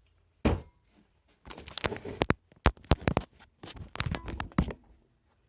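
A string of irregular clicks, knocks and clinks, about a dozen over several seconds with short quiet gaps: tools and metal pieces being handled and set down on a workbench.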